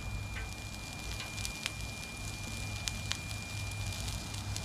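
Onions frying in melted butter on a hot Blackstone flat-top griddle: a steady sizzle with a few sharp pops, over a low steady rumble.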